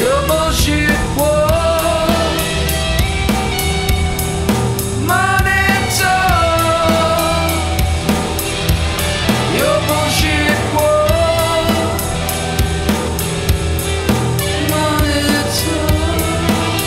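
Rock band music with a drum kit keeping a steady beat. A lead melody line bends and slides through phrases that begin about every five seconds.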